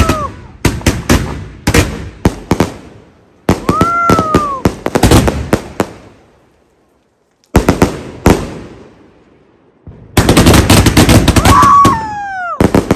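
Multi-shot aerial firework firing in volleys of rapid, sharp bangs and crackles as its shells burst overhead, with short pauses between volleys, the longest about halfway through. A few brief whistling tones rise and fall among the bangs.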